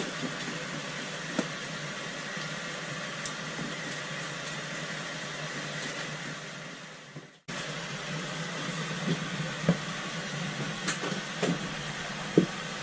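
Steady low mechanical hum of a boat's machinery, with a few faint small clicks as fishing line is handled and tied to a ball-bearing swivel. The sound fades out and cuts back in abruptly about seven seconds in.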